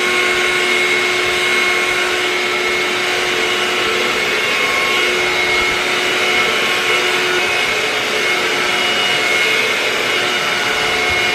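Handheld hair dryer running steadily, a rush of air with a steady motor whine, while blow-drying a wet wig.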